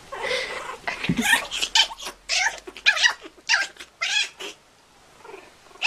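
Kitten yowling and meowing while playfighting with a puppy: a string of about seven short, high calls over the first four seconds or so, then quieter.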